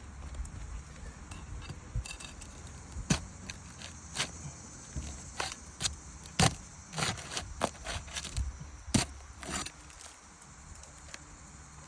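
Asphalt roof shingles being pried up and pulled apart, the sealant bond tearing with irregular crackles, snaps and scrapes.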